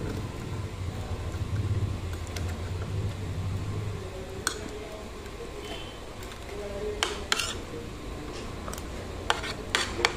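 Metal spoon and fork clinking and scraping against a plate while eating: about six sharp clinks, most of them in the second half, over a low steady hum.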